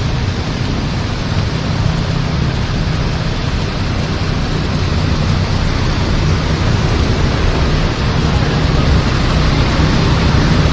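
Heavy rain pouring steadily, with a low steady hum underneath.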